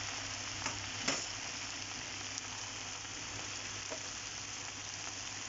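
Pan of onion, green chillies and fresh spinach sizzling steadily on the stove, the heaped spinach leaves starting to steam and wilt. A couple of faint ticks about a second in.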